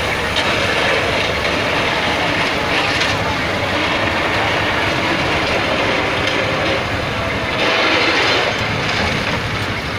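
Eicher box truck driving in tight circles, its engine running and its tyres grinding over dirt and gravel under a steady loud rush of noise. The noise swells briefly near the end.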